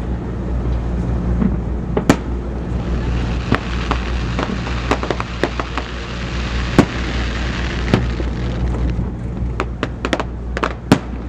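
Aerial fireworks bursting: scattered sharp bangs throughout, with a dense crackling fizz from about three to eight seconds in, over a steady low rumble.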